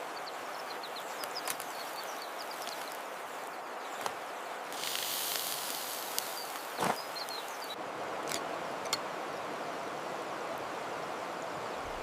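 Steady rushing of the Munzur river flowing past, with a few faint high bird chirps and a brief high hiss about five seconds in.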